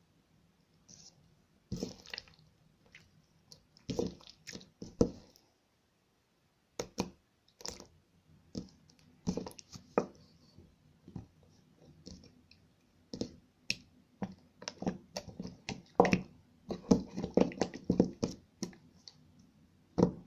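Jiggly slime being poked and squished by fingers: irregular wet clicks and pops, sparse at first and coming thick and fast near the end.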